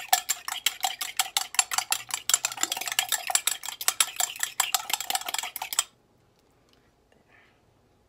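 Eggs being beaten by hand in a bowl: the utensil clicks rapidly against the bowl, several strokes a second, then stops abruptly about six seconds in.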